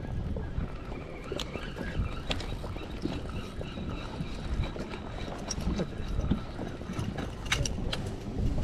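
Wind rumbling on the microphone on an open boat, with scattered clicks and knocks from gear being handled on the deck.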